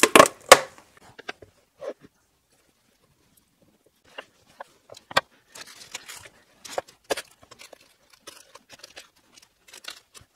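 Bench handling sounds: a few sharp clacks at the start as the plastic glue bucket is handled. From about four seconds in, parchment paper rustles as it is spread out and wooden boards knock lightly as they are laid on it.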